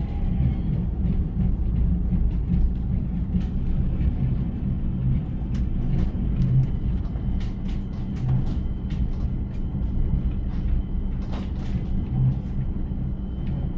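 Low-floor tram running along the track, heard from inside the passenger saloon: a steady low rumble from the wheels and running gear, with scattered clicks and rattles, most of them between about five and nine seconds in and again around eleven seconds, and a faint high steady whine from about four seconds on.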